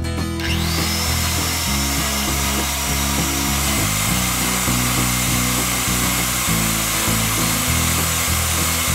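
Electric hand mixer switching on about half a second in, its whine rising as the motor comes up to speed, then running steadily as its beaters whip cream in a glass bowl. Background acoustic guitar music plays underneath.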